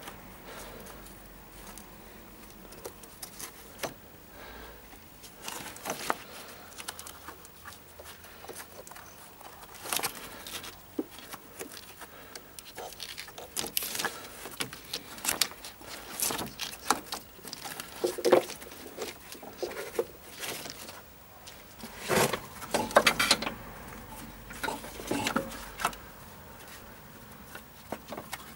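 Handling noises of a gloved hand working the ribbed accessory drive belt off the engine's pulleys: scattered rustles, scrapes and light knocks at an uneven pace, with a louder cluster about three quarters of the way through.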